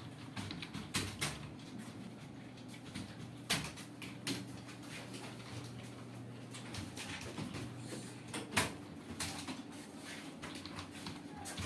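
Computer keyboard keys clicking in irregular strokes, a few sharper than the rest, over a steady low hum.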